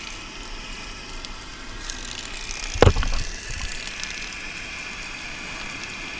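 A single sharp knock about three seconds in, over steady background noise with a faint high whine.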